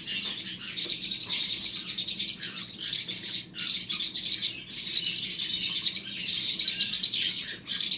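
Parrotlets chirping in a fast, continuous high-pitched twitter, with brief pauses a few times.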